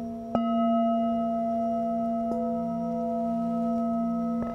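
Tibetan singing bowls struck with a felt-tipped mallet. A strike shortly after the start sets a bowl ringing in a long, steady tone of several pitches over bowls still sounding. A lighter strike comes about halfway through and another near the end.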